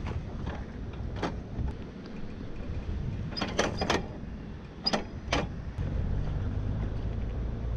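Knocks and rattles of a small motorcycle's metal parts being handled, over a low steady rumble. One knock comes about a second in, a quick cluster a little past halfway, and two more shortly after.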